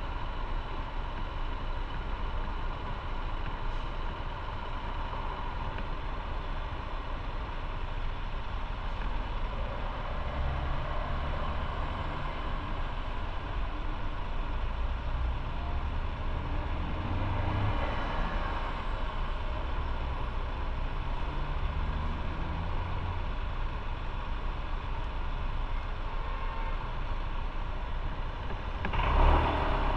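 Motorcycle engine running at low speed in slow city traffic, mixed with the engines of a box truck, cars and buses close by. Low rumbling swells come and go through the middle, and a brief louder rush of noise comes near the end.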